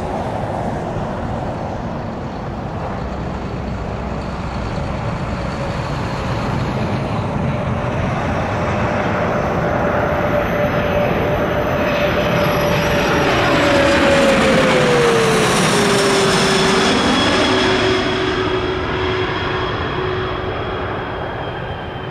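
Turbofan engines of a twin rear-engine business jet on landing approach, passing overhead. The engine whine grows louder, then drops in pitch as the jet goes by about two-thirds of the way through, and fades as it heads away toward the runway.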